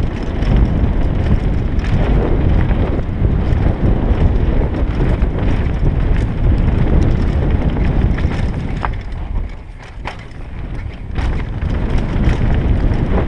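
Wind rushing over the rider's camera microphone as a mountain bike descends a dirt forest trail, with the tyres rumbling and the bike rattling over bumps. The rush drops briefly about ten seconds in, with a few sharp clicks around it.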